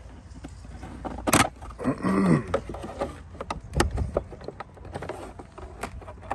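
Plastic clicks and snaps as a truck's plastic side-mirror cap is pried off its retaining tabs with a plastic trim tool. A sharp snap comes about a second in, followed by several smaller clicks and handling rustle.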